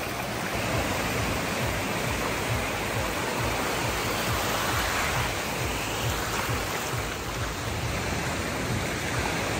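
Steady rush of sea surf, an even noise with no distinct breaks or events.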